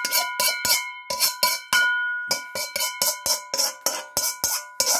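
A metal spatula tapping against a wok, about four strikes a second with a short pause about two seconds in, each strike setting the wok ringing with a bell-like tone: the last sauce and prawns being knocked out of the wok onto a plate.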